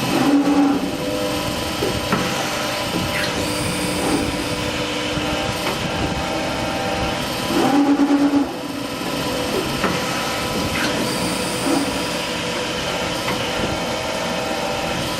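Factory machinery running with a steady hum, with two short louder tones, just after the start and about 8 s in, and scattered clicks.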